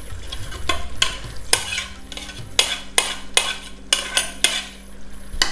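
Metal spoon stirring a thick egg and potato curry in a metal cooking pot, with a dozen or so irregular clinks and scrapes of the spoon against the pot's sides and bottom.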